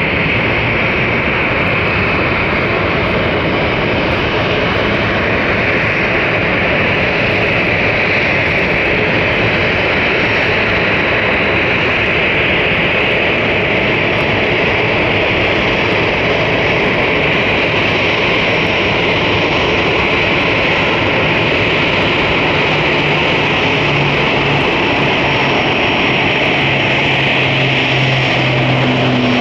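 Boeing 737-800's CFM56-7B turbofan engines running at taxi power as the airliner taxis past: a steady jet whine and rush, with a low hum coming up near the end.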